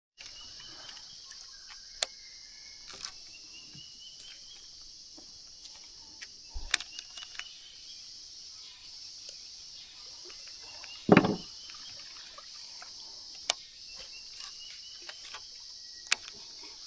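Steady high-pitched insect chorus, crickets or cicadas, with a few short rising calls over it. Scattered sharp clicks, and one loud thump about eleven seconds in.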